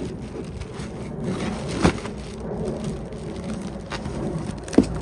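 Packaging rustling and scraping as a new tool bag is unboxed and handled, with two sharp knocks, one about two seconds in and one near the end.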